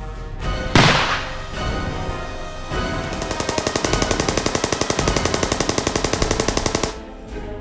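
Film soundtrack sound effects over music: one heavy hit about a second in, then a rapid rattle of even pulses, about ten a second, like machine-gun fire, that stops suddenly near the end.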